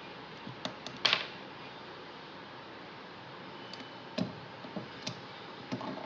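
Scattered clicks and light knocks of hard parts and tools being handled, over a steady hiss. The sharpest click, with a short rattle, comes about a second in, and a few duller knocks follow near the end.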